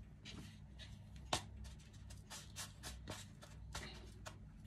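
Faint scratchy ticks and rustles of hands working sticky glutinous rice dough and pressing it into a bowl of sugar, with one sharper click about a second in, over a low steady hum.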